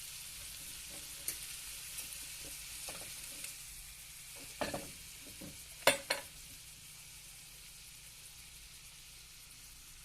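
Scallops searing in butter in a hot pan, a steady high sizzle. A few sharp clicks and knocks, as of a utensil against the pan, come through it, the loudest a pair about six seconds in.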